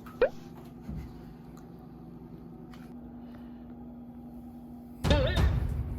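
A quiet room with a steady low hum and a brief rising squeak near the start; about five seconds in, background music with heavy drum beats comes in.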